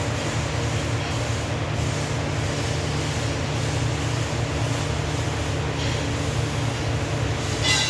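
TIG welding equipment running: a steady low drone with an even hiss over it, and a brief louder crackle near the end.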